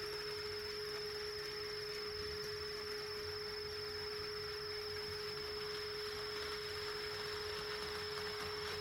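A steady electrical tone: two constant pure pitches, one low and one very high, holding unchanged over a faint low hum.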